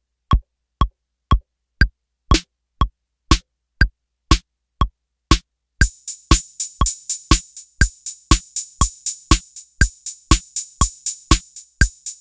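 808 drum kit played from Maschine pads at 120 BPM: a deep kick on every beat, two a second, in time with a metronome click. About six seconds in, an 808 closed hi-hat joins in quicker, even strokes, about four a second, as the pattern is recorded live.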